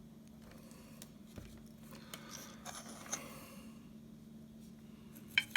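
Small scrapes and clicks of speaker wires and hand tools being handled while the wires are tinned for soldering, with a couple of sharp clicks near the end, over a faint steady low hum.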